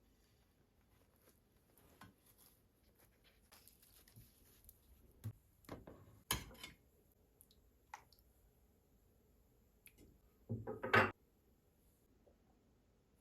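Dishes and kitchenware being handled: scattered light clicks and taps, a sharp knock about six seconds in, and a brief louder clatter near the end.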